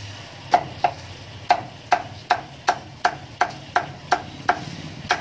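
Meat cleaver chopping a whole roast duck on a thick wooden chopping block: about a dozen sharp strikes at a steady pace of roughly three a second, each with a short ring.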